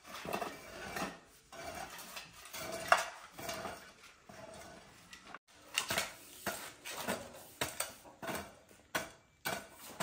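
Irregular metallic scraping and clinking, short strokes at uneven intervals, some of them ringing briefly.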